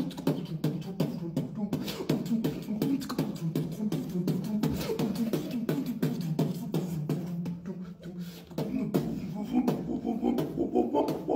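Live beatboxing: a fast run of vocal drum clicks and snares over a held low bass tone. The bass drops out briefly about eight seconds in, and higher pitched vocal sounds follow.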